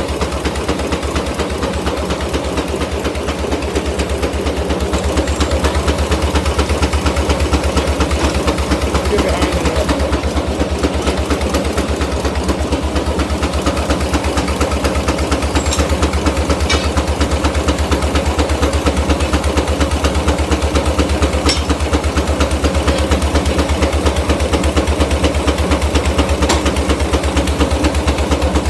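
Case portable steam engine running steadily, its exhaust beating in a rapid, even rhythm.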